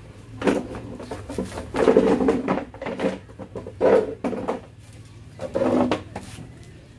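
A person chewing and crunching a mouthful of rat meat and leafy greens close to the microphone, in about five loud irregular bursts.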